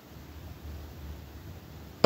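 Faint steady background hiss with a low hum, a pause in the speech with no distinct sound event.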